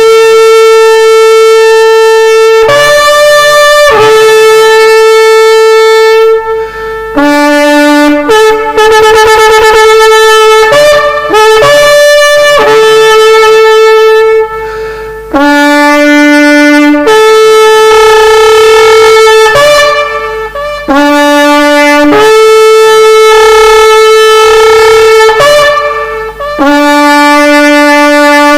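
A horn sounding a repeated call. Each blast jumps from a short low note to a long high note held for several seconds, and some notes waver and flutter in the middle.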